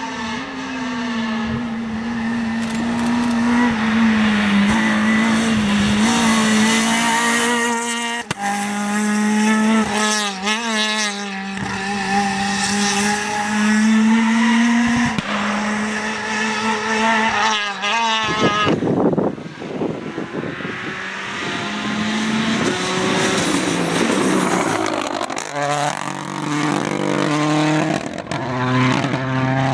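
Rally cars driven flat out: a Renault Clio rally car's four-cylinder engine held at high revs through the bends, then a Mini rally car accelerating near the end, its engine note climbing in steps with each gear change.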